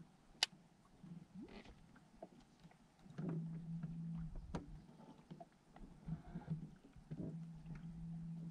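Bow-mounted Minn Kota Terrova electric trolling motor running in spurts as a low steady hum: on about three seconds in for about a second, then again from about seven seconds in. A sharp click comes under half a second in and another about halfway through.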